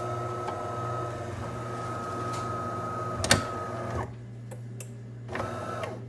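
De'Longhi Magnifica Start bean-to-cup coffee machine running with a steady mechanical hum and whine. A sharp click comes just before it stops about four seconds in, and it runs again briefly near the end. The owner finds the machine delivers just water and won't make anything.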